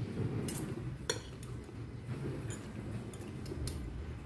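Metal spoon and fork clicking and scraping against a ceramic rice bowl in a few short, separate clinks, over a steady low rumble.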